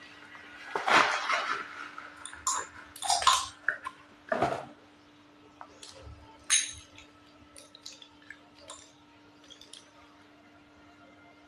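Slate pencils being bitten and chewed: a string of loud, sharp crunches through the first seven seconds or so, then fainter crackling clicks. A faint steady hum runs underneath.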